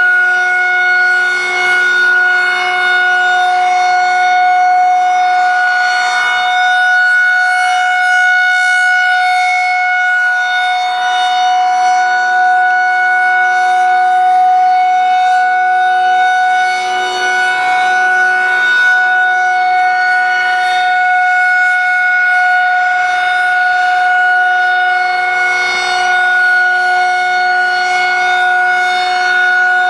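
Federal 2001-130 outdoor warning siren sounding a test, held at one steady pitch with several tones stacked above it. It swells and dips slightly in loudness.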